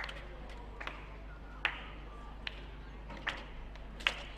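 Slow, rhythmic handclapping, about one clap a second, over a steady low hum.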